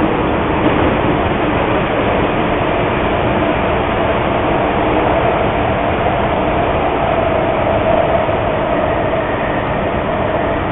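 Steady background noise, like riding inside a moving vehicle, heard over a telephone line in a voicemail recording, with a faint steady hum running through it.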